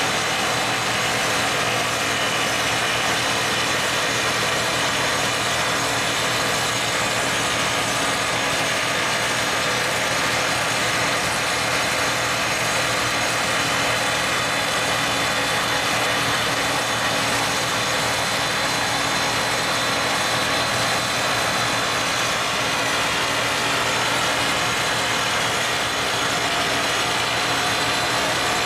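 Excavator-mounted hydraulic top-hammer rock drill (Feel Engineering EX-Drill 400, T45 rods, 89 mm bit) drilling into rock: a steady, unbroken mechanical racket of rapid percussion as the rod bores in, with air flushing dust out of the hole.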